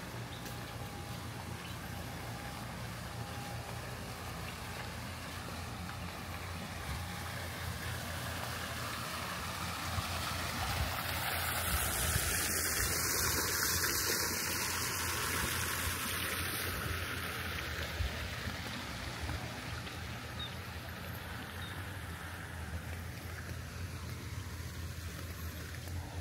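Steady outdoor rushing noise over a low hum, swelling louder for several seconds midway and then settling back.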